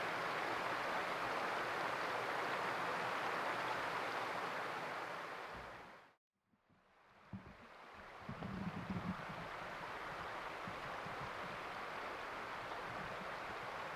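Steady rushing of a small mountain stream. It fades out about six seconds in, there is a second of dead silence at an edit, and then it comes back a little quieter with a few low knocks.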